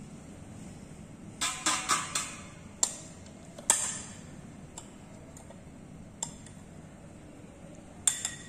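Glass Petri dish clinking and tapping as its lid and base are handled: a quick cluster of sharp clicks about a second and a half in, scattered single ticks after, the sharpest near four seconds, and two more near the end.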